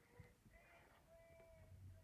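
Near silence: room tone with a few faint, brief tones.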